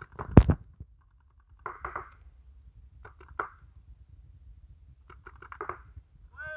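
A sharp knock about half a second in, then scattered fainter clicks and short pops.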